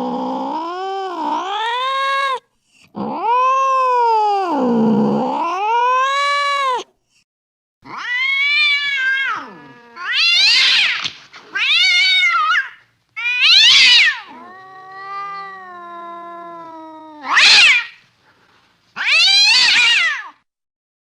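Domestic cat caterwauling: angry, drawn-out yowls that waver down and up in pitch, followed by a run of shorter, higher yowls, a lower drawn-out moan, and two sharp shrieks near the end.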